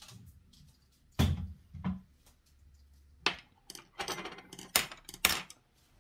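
Dishes and eating utensils set down on a tabletop: a series of sharp knocks and clinks as bowls settle and chopsticks and a spoon are laid beside them, busiest and loudest in the second half.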